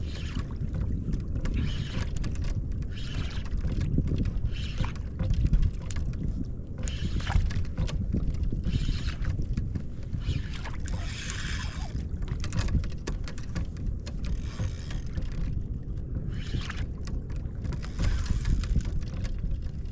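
Wind buffeting the microphone on a kayak at sea, a steady low rumble, with water sloshing and splashing against the hull in short bursts every few seconds.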